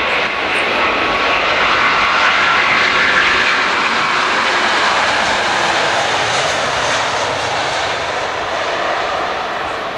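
Airbus A380 airliner's four jet engines running at high power as it passes close by: a loud, dense rush of jet noise with a faint steady whine. The noise swells over the first second, peaks a few seconds in and slowly fades toward the end.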